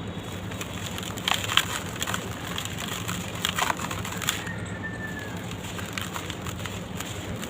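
Dry red dirt crumbling and crunching, with sharp crackles about one and a half and three and a half seconds in.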